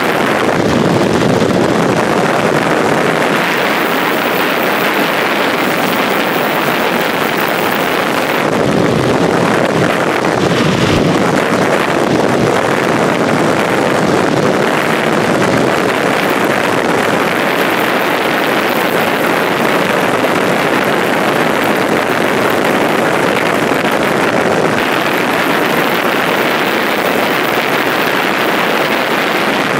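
Steady rush of wind on the microphone mixed with road and motor noise, travelling at highway speed, about 75 mph.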